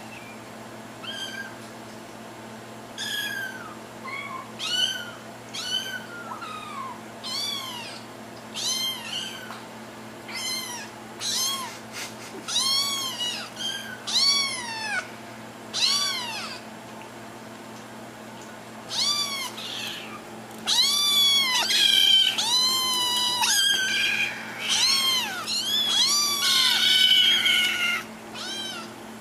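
Several young kittens meowing over and over in short, high calls, each rising and then falling in pitch. The calls come one or two at a time at first. From about two-thirds of the way in, the kittens meow over one another, faster and louder.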